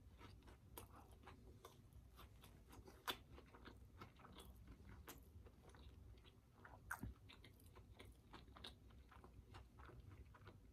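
Faint close-up chewing of a mouthful of cheese-curd-topped burger, with small scattered mouth clicks; a couple of slightly sharper clicks about three seconds in and again about seven seconds in.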